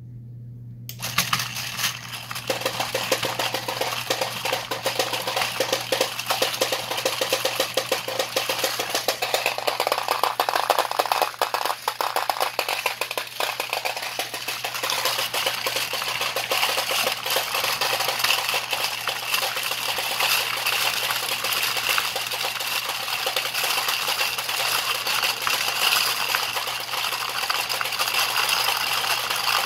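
Homemade side-loader pachinko ball lifter running, its steel pachinko balls clattering through the wooden feeder in a dense stream of rapid clicks over a steady low hum. It starts up about a second in and keeps a steady pace, rated at about 400 balls a minute.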